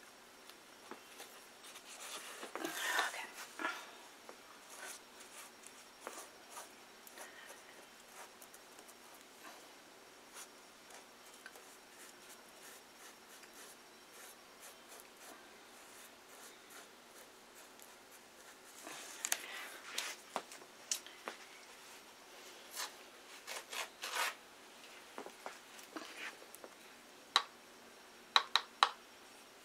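Paintbrush working watered-down glue: scraping and tapping in a plastic cup and brushing over paper towel on cardboard. These come as scattered rustles and scrapes, busier about two seconds in and again around twenty seconds in, with a few sharp taps near the end.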